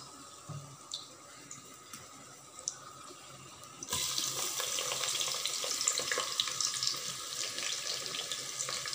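Sliced onions hitting hot ghee in a pressure cooker: a faint crackle of whole spices frying turns, about four seconds in, into a sudden, much louder steady sizzle with crackles.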